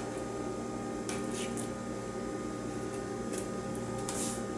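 Faint soft squishes of raw steak pieces being set into a crock pot with tongs, over a steady low hum.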